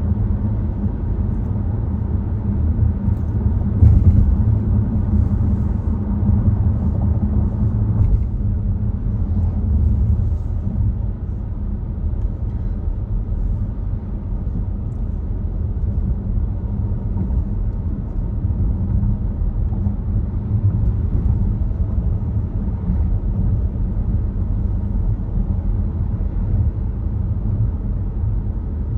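Volvo XC60 driving at speed: a steady low rumble of road and engine noise, swelling slightly a few seconds in.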